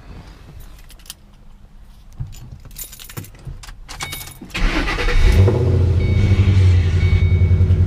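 Keys jangling and small clicks, then about four and a half seconds in the turbocharged 2007 Ford Mustang GT's 4.6-litre V8 cranks, catches and settles into a steady idle.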